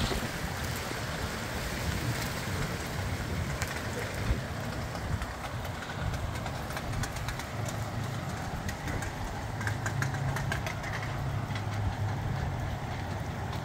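Gusty wind rumbling on the microphone, with rain ticking in many small sharp taps that grow denser in the second half.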